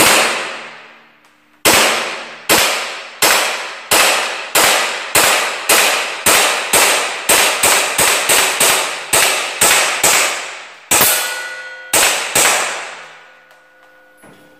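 About two dozen shots fired in quick succession from a KJ Works Colt Hi-Capa gas blowback pistol, each with an echoing ring-out. The pace quickens to about three shots a second in the middle, then slows, and the last two shots come about twelve seconds in.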